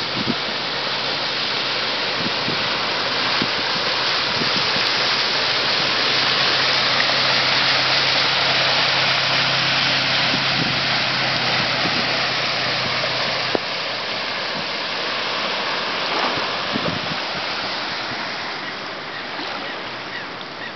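Pickup truck driving through deep floodwater, its tyres throwing up a rushing wash of water over a low, steady engine hum. The splashing rush is loudest midway; the engine hum cuts off sharply about two-thirds through, leaving a softer rush of water that fades toward the end.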